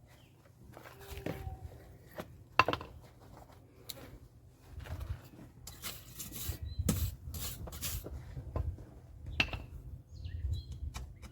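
Irregular clinks, knocks and scrapes of metal being handled, with a sharp knock about two and a half seconds in and a denser cluster in the middle.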